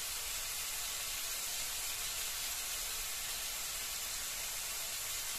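Chopped tomatoes frying in oil in a steel wok, a steady, even sizzle.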